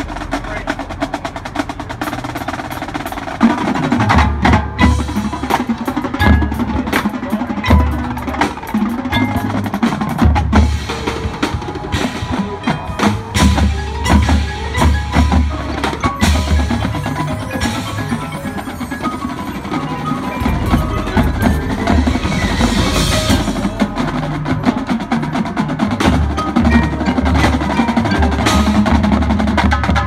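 High school marching band playing its field show, with the front ensemble's mallet percussion and the drums to the fore.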